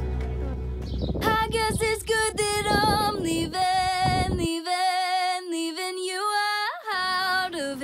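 Background music: a song with a woman singing, coming in about a second in. Its bass drops out for a couple of seconds past the middle, then returns.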